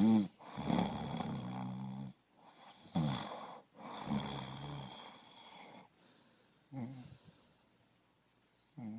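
A person snoring: a run of rough, pitched snores over the first five seconds or so, then quieter breathing with two short snorts near the end.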